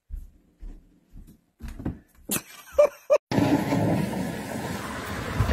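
A series of soft thuds and knocks, louder and sharper toward the middle, with two short high-pitched cries just before three seconds in. Then, after a sudden change, steady wind noise on the microphone.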